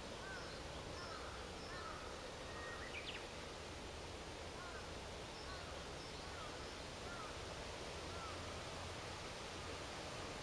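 Quiet outdoor ambience: a low steady rumble with faint, short bird chirps repeating every second or so.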